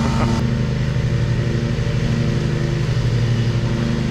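Riding lawn mower's engine running steadily at full throttle with the cutting blades engaged, mowing grass.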